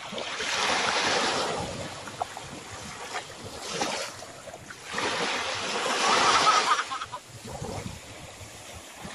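Small waves washing in over shallow sand, a rushing noise that swells and falls back several times.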